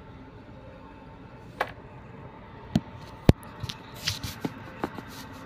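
Light handling of plastic food containers and a plastic spoon: three sharp taps, the third the loudest, then softer clicks and rustling, over a faint steady hum.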